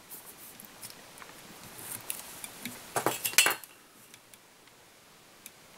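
Light metallic clicks and clinks of a whip-finish tool working the tying thread around a fly's head on the vise, with a short cluster of sharper clicks about three seconds in.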